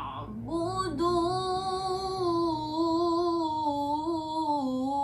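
A young girl's voice in melodic Quranic recitation (tilawah), holding one long drawn-out note with a slight waver. It breaks briefly at the start, swells back in, and dips a little near the end.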